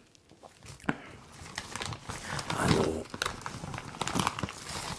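A plastic potato-chip bag and a plastic glove crinkling as a hand rummages in the bag close to the microphone. It is quiet at first, then the rustling and small crackles build up from about a second and a half in.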